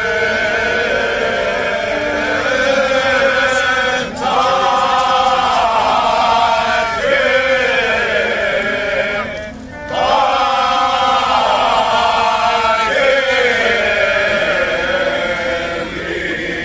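A large group of men singing a Cretan rizitiko folk song unaccompanied, in long drawn-out phrases, breaking off briefly for breath about four seconds in and again near the middle.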